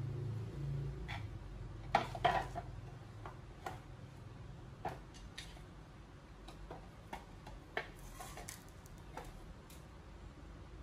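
Scattered light clicks and knocks of shoe-cabinet parts being handled and fitted together during assembly, with two louder knocks about two seconds in.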